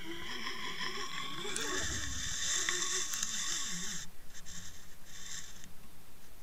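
Underwater sound from a fishing camera housing being pulled through lake water: water hiss over the camera with a wavering hum underneath. The hiss strengthens about a second and a half in and drops away about four seconds in.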